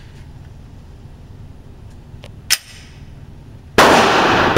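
A short, sharp crack of a gunshot a little past two seconds in. Near the end comes a very loud 9mm HK USP pistol shot, its report ringing on through the reverberant indoor range.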